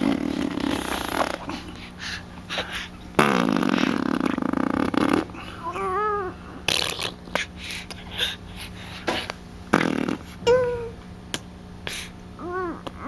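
Baby blowing raspberries with the lips: a buzzing raspberry at the start, then a longer one of about two seconds from about three seconds in. After that come several short cooing squeals that rise and fall in pitch.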